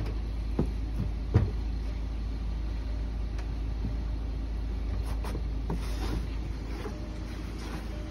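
Steady low rumble, with two sharp knocks in the first second and a half and a few fainter ticks later, as a small ATV is pushed by hand across a wooden trailer deck.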